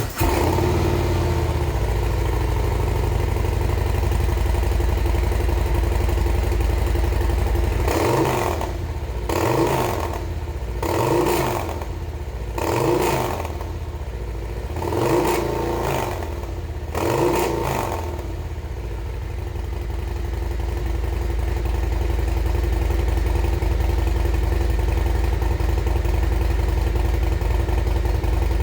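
Harley-Davidson Milwaukee-Eight 117 V-twin idling through Tab Performance Redline slip-on mufflers, then about six quick throttle blips in a row starting about eight seconds in, each rising and falling in pitch, before it settles back to a steady idle.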